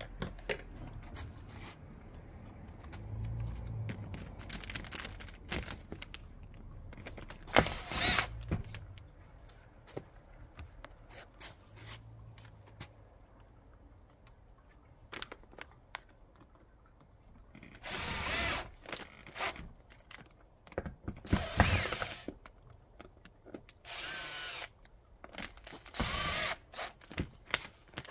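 Power drill running in short bursts of about a second each, once early on and four times in the second half. Scattered clicks and knocks come between the bursts.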